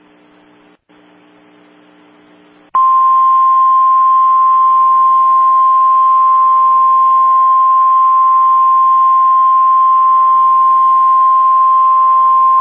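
Low radio hum with a brief dropout, then an emergency alert tone: one loud, steady single tone that starts abruptly about three seconds in and holds for roughly ten seconds before cutting off, the warning alarm tone that comes before a National Weather Service weather radio warning.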